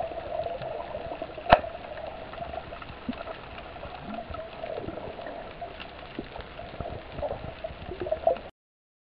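Underwater water noise: a steady muffled hiss with gurgling, a sharp click about a second and a half in, then an abrupt cut to silence near the end.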